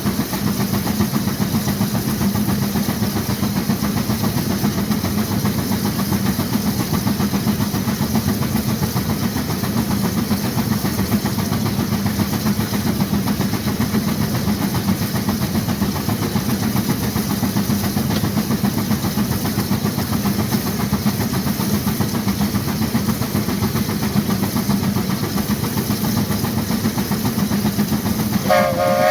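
1916 Case 40 HP steam traction engine working hard against a Baker fan, its exhaust running as a steady, loud rush from the stack. Near the end its steam whistle starts to blow.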